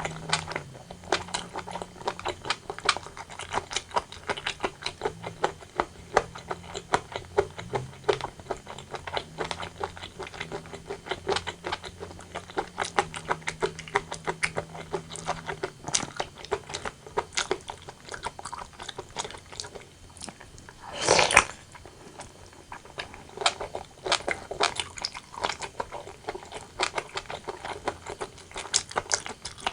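Close-miked eating sounds of a person chewing braised pork and rice: a continual run of wet mouth clicks and smacks, with one louder, noisier sound lasting about half a second roughly two-thirds of the way through.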